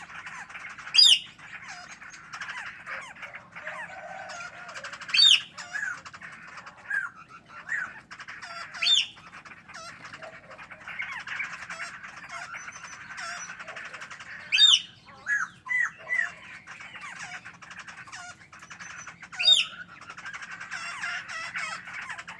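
A bulbul singing: loud, sharp calls come about every four to five seconds, with shorter notes between them, over steady twittering.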